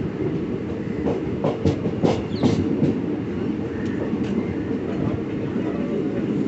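Passenger train running at speed, heard from inside a carriage: a steady low rumble of wheels on rails, with a quick run of clacks over rail joints between about one and three seconds in.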